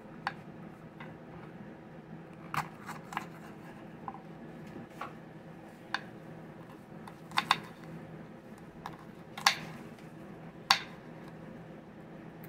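A small knife knocking against a bamboo cutting board while slicing a green bell pepper into strips: about a dozen sharp, irregular taps with gaps of up to a second and a half between them, over a faint steady hum.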